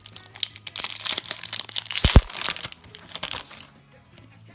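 Foil booster-pack wrapper crinkling and being torn open by hand, with one sharp thump about two seconds in.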